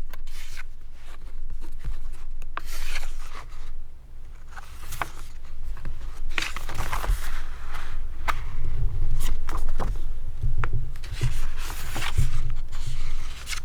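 A cardboard collector's box and its contents being handled: rustling, scraping and sliding, with scattered light clicks and knocks and low thumps close to the microphone.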